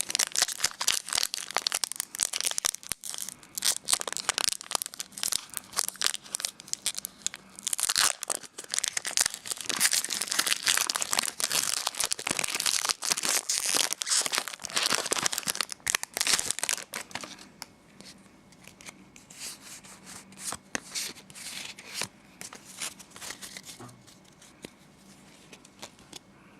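Foil wrapper of a Pokémon Platinum Arceus booster pack being torn open and crinkled: a dense run of crackling rustles for about seventeen seconds, then only fainter, scattered rustles.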